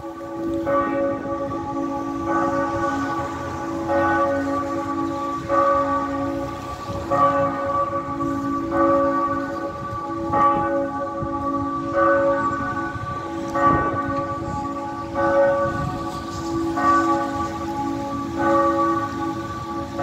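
A single church tower bell rings in even strokes about every one and a half seconds, each stroke ringing on into the next. This is the bell rung before weekday morning mass.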